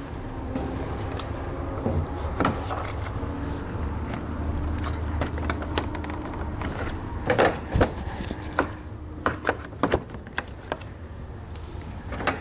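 Plastic push-pin trim fasteners being pried and pulled out of a car's radiator support: scattered sharp plastic clicks and knocks, busiest about seven to ten seconds in, over a steady low hum.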